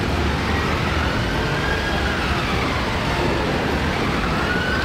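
Double-decker bus running amid street traffic: a steady low engine rumble and road noise, with a faint whine that wavers in pitch and rises near the end.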